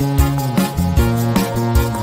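Upbeat background music with a steady beat and plucked or synth notes.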